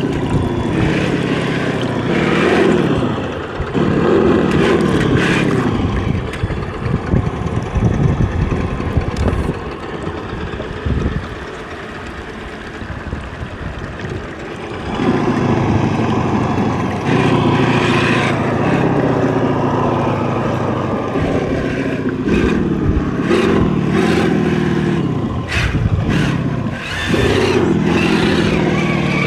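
Traxxas TRX-4 RC crawler's electric motor and gearbox whining in spurts, the pitch rising and falling with the throttle, over the hiss of running and splashing water as the truck wades a shallow stream. Through a stretch in the middle the whine drops out, leaving mostly the sound of water and wind.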